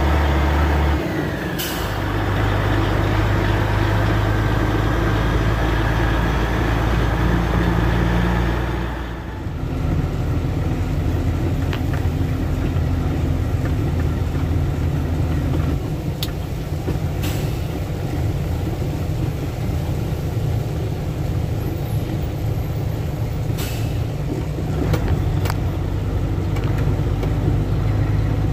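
Tractor-trailer truck's diesel engine running as it moves at low speed, its note changing about a second in and again about nine seconds in. Short air-brake hisses come a few times: near the start, past the middle and near the end.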